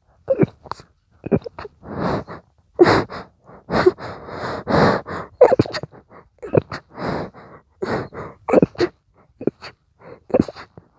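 A person stifling a rapid sneezing fit: many short, held-back sneezes in quick succession, with gasping in-breaths between them.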